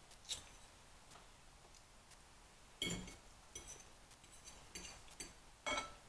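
Metal fork clicking and scraping against a plate as noodles are scooped up: scattered light ticks, with two louder short scrapes about three seconds in and near the end.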